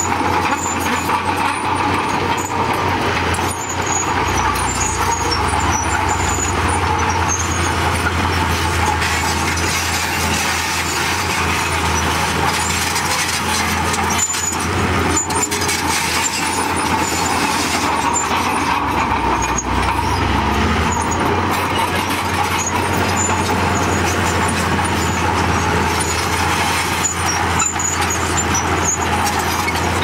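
Komatsu D31P crawler bulldozer working: its diesel engine running steadily under load as it pushes broken rock and soil, with scattered clanks.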